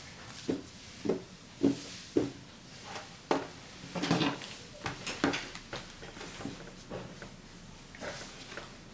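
Hands handling the packaging of a toy cap pistol: a series of soft knocks, about one every half second at first, then a busier stretch of knocking and rustling in the middle, fading to occasional taps.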